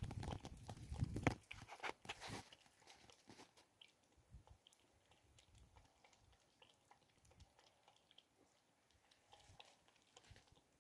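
Domestic cat lapping water from a plastic tub: irregular wet tongue clicks, louder for the first two seconds or so, then faint.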